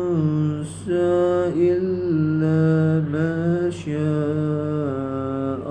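A man's solo voice chanting Quranic recitation in the melodic tajwid style, with long held notes that are ornamented and glide up and down, broken by short breaths between phrases.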